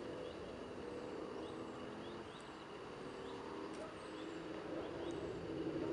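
Faint open-air background: a low murmur with short high chirps recurring about twice a second and a few thin higher calls.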